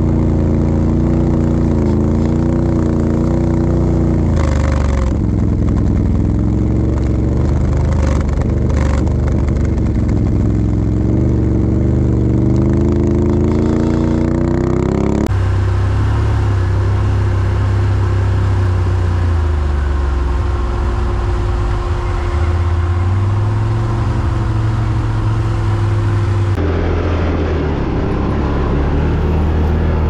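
ATV engine running on the move, its pitch rising and falling with the throttle. The sound changes abruptly twice, about halfway through and a few seconds before the end, then goes on as a steadier drone.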